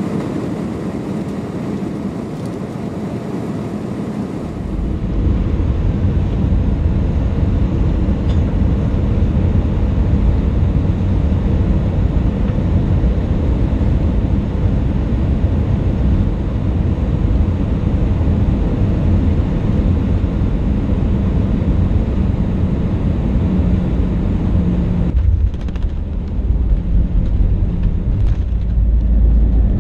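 Airbus A320 heard from inside the cabin: steady engine and airflow noise, then a heavy low rumble from about four seconds in as the aircraft runs along the runway. The rumble dips briefly near the end and then comes back louder.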